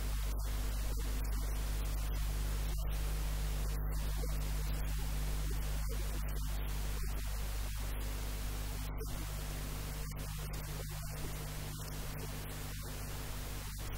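Steady hiss of static on the audio track, with a low constant electrical hum underneath.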